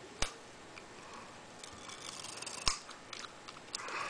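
A small piece of clear tape pulled from a handheld tape dispenser and cut off: a sharp click near the start, then a faint rasping and a second sharp click a little past halfway.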